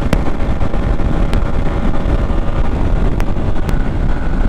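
Wind rushing over the microphone of a 200 cc motorcycle ridden at about its top speed, with the engine's steady drone underneath. A few short clicks are scattered through it.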